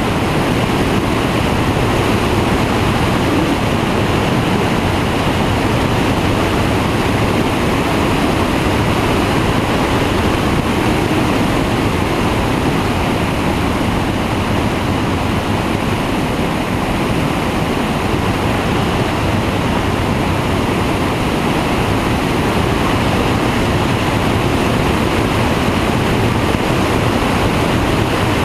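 Flex-wing microlight trike in cruising flight: a steady rush of wind over a wing-mounted camera, with the even drone of the pusher engine and propeller underneath.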